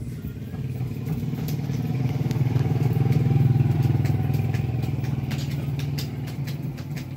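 A motor vehicle's engine passing by, a low hum that grows louder to a peak about halfway through and then fades away, with a few light clicks near the end.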